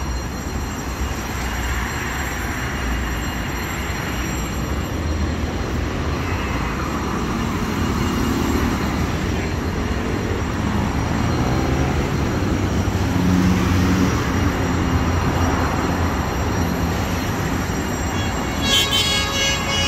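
Busy city road traffic: a steady rumble of passing cars and heavier vehicles, swelling toward the middle, with a brief horn near the end.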